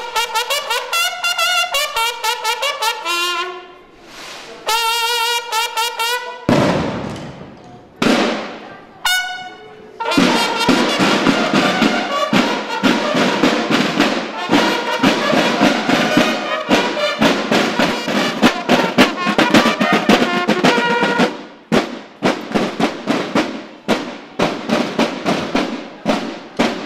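Marching drum-and-bugle corps (banda de guerra): brass bugles sounding rapid calls, then bugles and snare drums playing a march together from about ten seconds in, with the steady drumbeat carrying on near the end.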